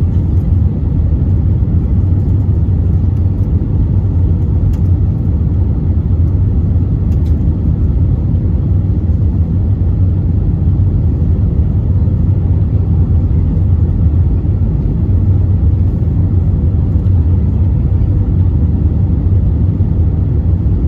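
Airbus A320 cabin noise on the descent toward landing: a steady low rumble of engines and airflow.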